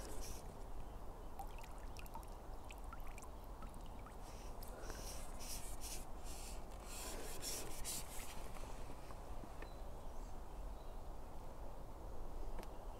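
Faint water sounds at the canal surface: small splashes, trickles and drips from a hooked tench being played near the landing net, over a low steady rumble.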